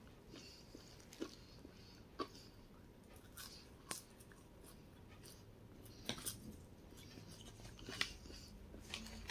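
A person quietly chewing and eating french fries, with soft wet mouth sounds and scattered small clicks and smacks at irregular intervals.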